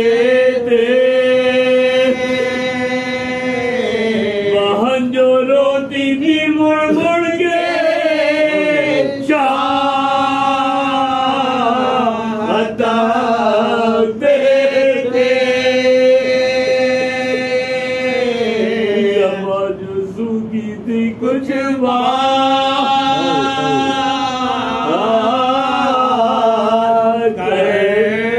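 A group of men chanting a Muharram mourning elegy (nauha) into a microphone, unaccompanied, in long drawn-out melodic phrases that break off and restart every few seconds.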